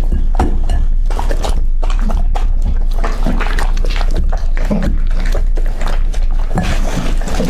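A dog eating raw meat close to the microphone: wet chewing and smacking in quick, irregular clicks.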